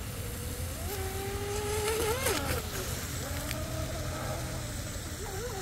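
Brushless electric motor of a radio-controlled speedboat running out on the water, a thin whine that rises and falls with the throttle and wavers sharply about two seconds in.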